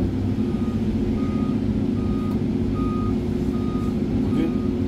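Reversing alarm of a four-axle dump truck backing in to be loaded, beeping steadily about once every 0.8 seconds, six beeps in all. A steady diesel engine drone runs underneath.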